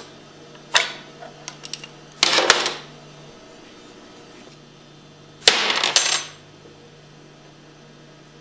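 Small metal parts of a Hypro pump's valve assembly clinking and clattering as they are handled and set down: a sharp click, a few light ticks, then two short clatters.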